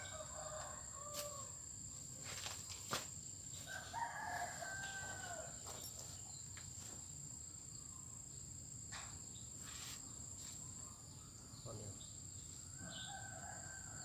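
Roosters crowing faintly, about three times, over a steady high-pitched insect drone, with a few soft clicks.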